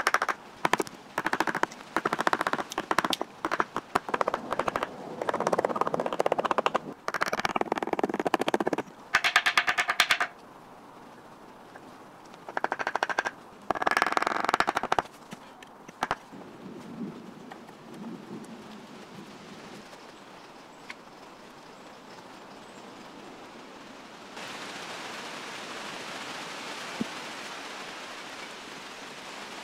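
Axe chopping wood, sped up in time-lapse so the strikes run together into rapid rattling bursts for about the first ten seconds. Two more short bursts of axe cuts into a branch come midway. A steady soft hiss begins near the end.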